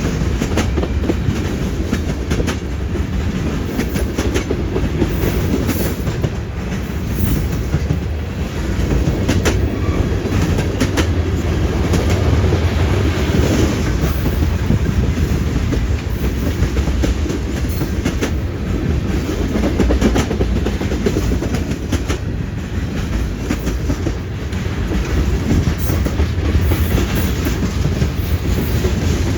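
Freight train cars rolling past at speed, a steady heavy rumble with steel wheels clacking repeatedly as they cross the rail junction.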